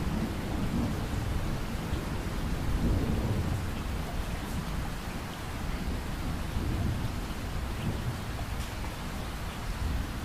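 Steady rain with low, rolling rumbles of thunder that swell and fade several times.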